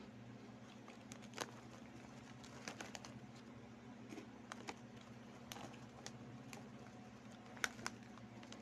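Crunchy Chick Boy snack chips being chewed and the plastic snack bag handled: faint, irregular sharp crunches and crinkles, a few louder ones near the end, over a steady low hum.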